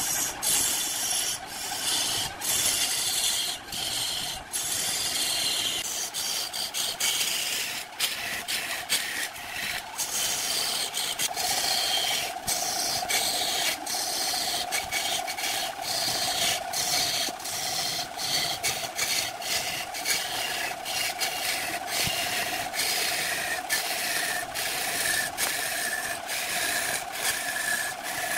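A hand-held turning tool cutting into a large log spinning on a wood lathe: a continuous scraping rasp full of irregular sharp clicks as chips tear off, over a steady hum that grows stronger partway through.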